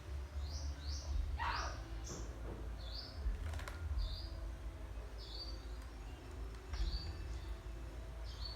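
A bird chirping repeatedly: short high chirps roughly once a second, with one longer falling call about a second and a half in, over a steady low rumble.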